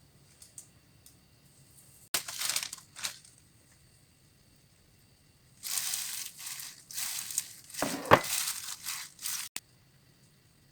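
Dry crinkling and crushing noise in two bouts: a short one about two seconds in, and a longer one from about the middle that cuts off sharply near the end.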